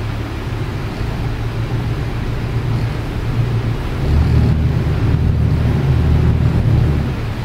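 Twin Yanmar diesel engines of a power catamaran running at low speed, a steady low hum. About four seconds in it swells louder and deeper as the engine control lever is worked, then eases back near the end.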